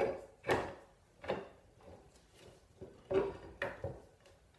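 Bar clamps being set and tightened on a glued wooden panel: a handful of short knocks and clatters of the metal clamp parts against the wood and bench, with gaps between.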